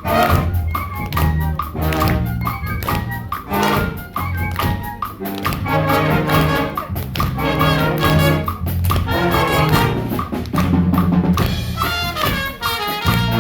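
Wind band (harmonie) playing a tune, brass to the fore over a steady drum beat.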